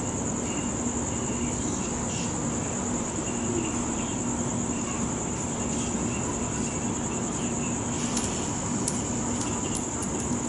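Crickets chirping in a continuous high trill, over a steady low hum and a constant low rumbling noise; a few faint ticks near the end.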